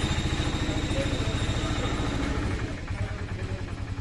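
Portable bucket milking machine's vacuum pump running with a fast, even pulse, easing slightly quieter about halfway through.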